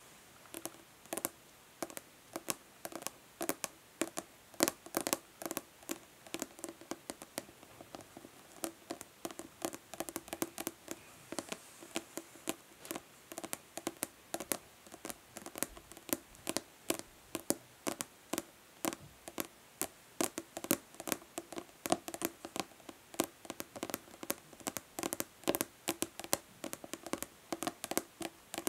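Natural fingernails tapping fast and irregularly on a plastic body lotion bottle: sharp clicks several times a second with a hollow plastic ring, some strikes much louder than others.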